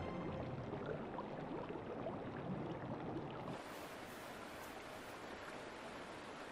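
Faint flowing-water ambience of a shallow stream. About three and a half seconds in, the background changes to a quieter, hissier outdoor ambience.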